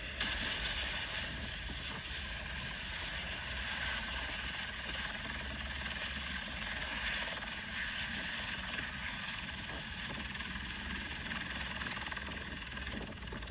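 Helicopter coming in to land on a grass pad, its engine and rotor running as a steady noise with no sharp events.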